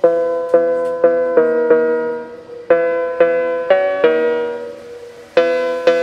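Background music: a piano-like keyboard playing a slow, repeating melody of single notes, each struck and left to fade, in phrases of four or five notes with short pauses between.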